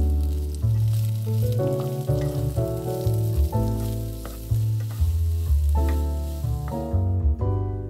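Chicken pieces and diced onion sizzling in a nonstick frying pan as they are stirred with a wooden spatula, over background music with a deep bass line. The sizzling cuts off near the end.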